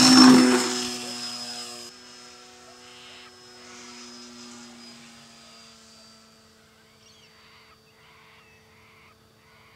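Radio-controlled model Cessna's motor and propeller whining at a steady pitch as the plane takes off and skims past close by. The whine is loudest at the start, then fades steadily as the plane climbs away. A few faint bird chirps come in near the end.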